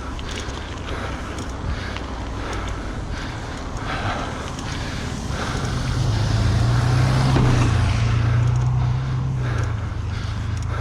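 Wind and road rumble during a mountain-bike ride, with the rider's heavy breathing. A low steady hum swells from about halfway through and eases near the end.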